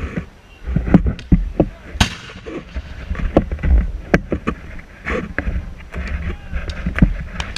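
Civil War muzzle-loading field artillery cannons firing blank charges: a series of sharp booms, the loudest about a second in and again near the end, with a low rumble between them.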